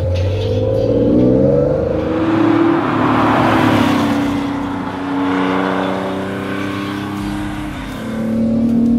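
Classic Porsche 911's air-cooled flat-six engine accelerating on the road. Its note climbs, drops and climbs again several times, with a rush of noise in the middle as the car goes by.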